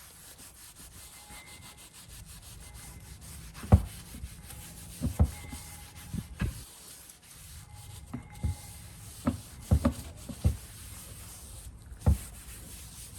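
Rubbing and handling sounds over a steady hiss, with about ten scattered sharp knocks.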